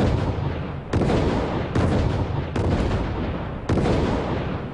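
A string of sharp explosive bangs, about one a second, each trailing off into a rumble before the next one hits. These are the chemical-explosive charges of the Orion free-flying test model going off one after another to push it upward.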